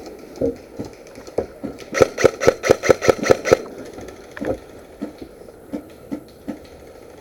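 Airsoft gun firing a quick string of about nine shots, roughly five or six a second, with fainter single shots scattered around it.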